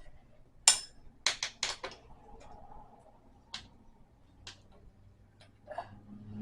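Sharp clicks and taps of dresser parts and hardware being handled during flat-pack assembly: one loud click about a second in, a quick run of four soon after, then a few scattered ticks.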